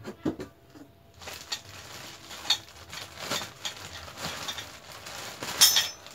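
Clear plastic wrapping crinkling and rustling in irregular crackles as it is pulled off a new motorcycle exhaust pipe, with a few short knocks near the start and a louder burst of crinkling near the end.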